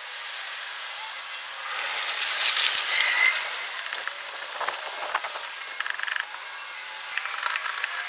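Small metal pick scraping the arc-burnt copper contact pads of a power window switch to clean them: a scratchy hiss that swells about two seconds in, then a run of short scratches and light clicks.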